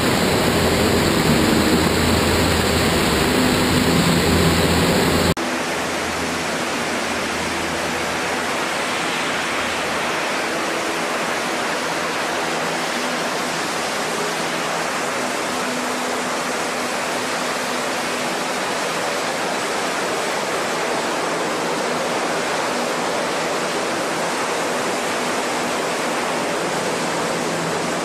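LCAC hovercraft running on its air cushion: a steady, even noise of its gas turbines, ducted propellers and the spray thrown up by the cushion. About five seconds in, the deep hum drops out suddenly and a lighter, steadier noise of the same kind carries on.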